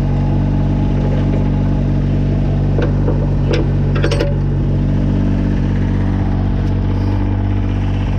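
Kubota BX22 compact tractor's three-cylinder diesel engine idling steadily, with a few short sharp clicks about three to four seconds in.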